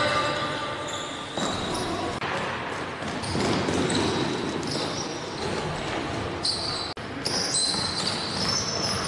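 A basketball being dribbled on a gym floor amid players running, with sneakers squeaking in the second half, all echoing in a large hall.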